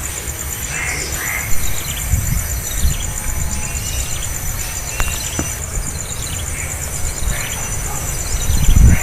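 Outdoor ambience: a steady, high, evenly pulsing insect trill over scattered short bird chirps, with a low rumble underneath and a single sharp click about five seconds in.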